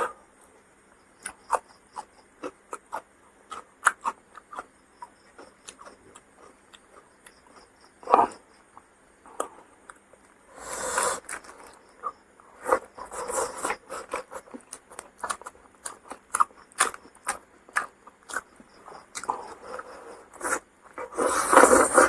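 Chewing and mouth sounds of someone eating a fish fry and rice meal: wet smacks, clicks and crunches. They are scattered at first, then come thicker and louder about halfway through, with a loud stretch of chewing near the end.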